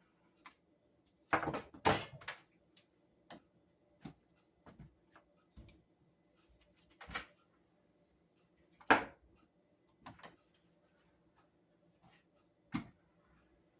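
Scattered knocks and taps of hands and utensils working at a kitchen counter while bread dough is shaped, loudest in a short cluster near the start and once about nine seconds in, over a faint steady hum.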